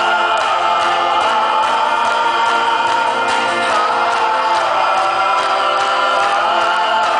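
Folk-rock band playing live, with banjo, acoustic guitar, upright bass and keyboard under several voices singing together over a steady beat.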